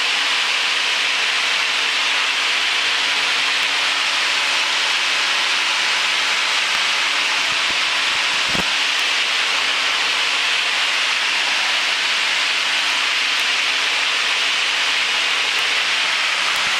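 Steady cockpit noise of a single-engine Cessna in cruise, picked up through the headset intercom: an even hiss with a faint engine hum underneath. A single soft bump comes about halfway through.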